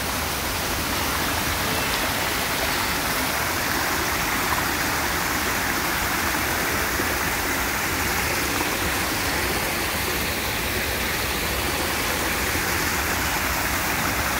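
Small waterfall: water pouring steadily over low rock ledges into a shallow pool, a continuous even rushing with no change.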